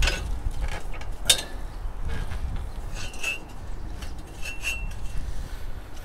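Metal clinks and knocks from a homemade steel log-lifting cart as its lever arm is worked to hoist a log in a strap. Two sharp knocks come first, the louder one about a second in, then short ringing clinks around the middle, over a low rumble.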